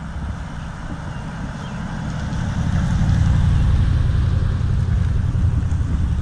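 A motor vehicle's engine rumbling as it drives past, getting louder about two seconds in and then holding steady.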